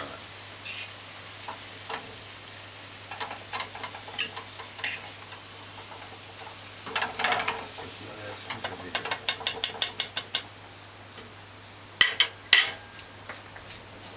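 A fork clicking and scraping against a metal pot as fried plantain slices are lifted out of the oil, over a faint sizzle of oil. A quick run of taps comes about nine seconds in, and two sharp knocks come near the end.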